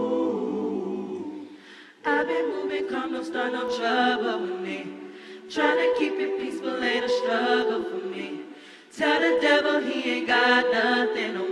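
Gospel choir singing a cappella in full harmony, in three phrases that each come in suddenly and then fade away.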